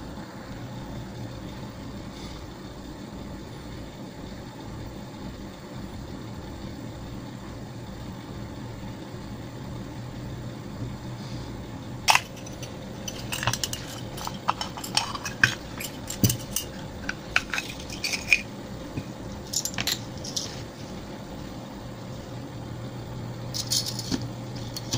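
Small metal oil-lamp fuel bottles and candle lantern parts clinking and tapping as they are handled on a desk mat. The clinks start about halfway through and come in scattered clusters over a steady low hum.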